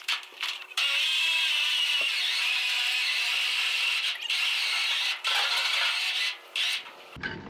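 Electric winch motor whining under load as it pulls a log up onto a trailer. The whine breaks off briefly several times and ends abruptly about seven seconds in.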